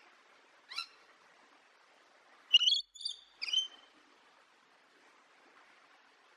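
A bird calling: one short sharp chirp about a second in, then three quick chirps in the middle, the first of them the loudest.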